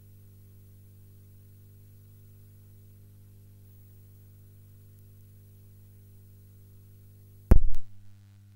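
Faint steady low electrical hum, then about seven and a half seconds in a sudden loud pop lasting about a third of a second with a couple of smaller echoes, after which the hum thins out.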